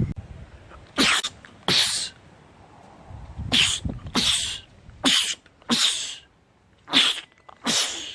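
A man sneezing over and over: eight short, sharp sneezes that come in quick pairs, four pairs in a row.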